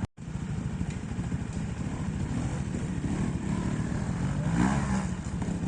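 Trials motorcycle engine running, with a short burst of rising revs near the end.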